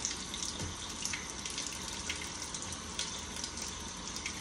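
Kitchen faucet running steadily into a stainless-steel sink.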